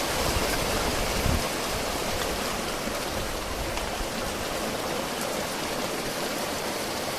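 Heavy rain pouring down steadily in a strong squall, as an even rushing hiss. Wind buffets the microphone with a low rumble for about the first second and a half.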